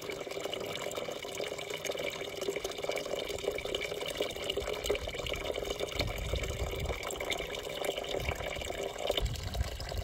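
Small electric garden fountain running on its high pump setting: a steady stream of water pouring from the faux hand-pump spout and splashing into the half-filled upper barrel bucket. The bucket has not yet spilled over into the lower basin.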